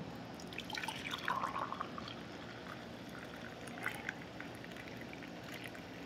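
Hot brewed coffee pouring from a glass coffee-maker carafe into a mug: a faint, steady stream, a little louder in the first couple of seconds.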